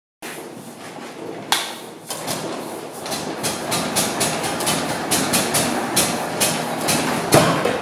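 Vintage Daimler Motoren-Gesellschaft Type LS944A stationary engine starting up. A sharp crack comes about 1.5 s in, then slow, distinct firing beats grow louder and quicker, about three to four a second, with a louder crack near the end.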